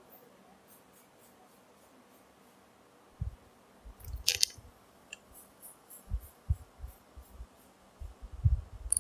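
Faint handling noise of a phone held close: scattered low thumps and bumps, with a brief rustle about four seconds in.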